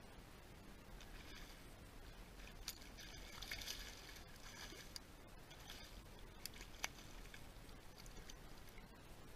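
Faint splashing of a hooked bass thrashing at the side of a kayak, strongest about three to four seconds in, with a few sharp clicks.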